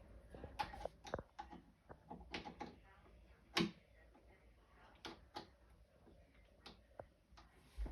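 Faint, irregular clicks and knocks of door-lock hardware being handled as the old lock is taken off the door. The loudest knock comes about three and a half seconds in.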